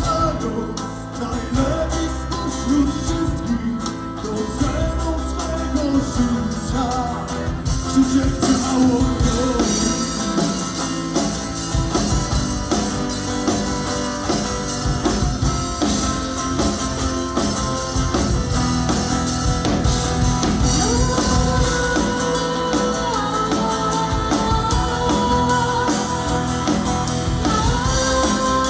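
Live acoustic rock band playing a song: acoustic guitars and a bass guitar, with a melody line that turns to longer held notes in the second half.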